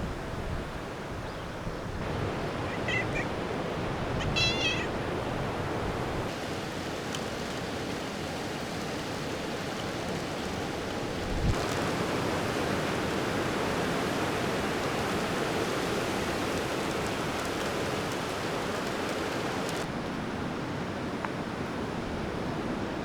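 Steady rushing of surf and wind, with two short high wavering animal calls about three and four and a half seconds in.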